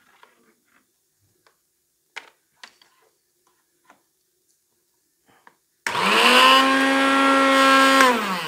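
Miyako blender motor switched on about six seconds in, running steadily for about two seconds, then switched off and spinning down with a falling pitch: a test run after its worn drive gears were replaced. Before it, faint clicks of the power cord being handled.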